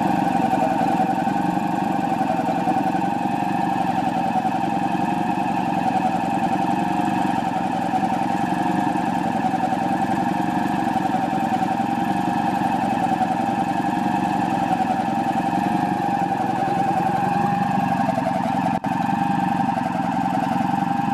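Electric-motor-driven ZIL truck air compressor, not yet run in and turning at about 1000 rpm, running steadily as it pumps up its receiver tank, with a wavering whine over the machine noise. The sound drops out for an instant near the end.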